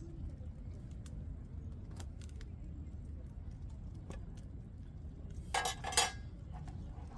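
A brief jangle of metal clinking about five and a half seconds in, over a low steady rumble with scattered small clicks.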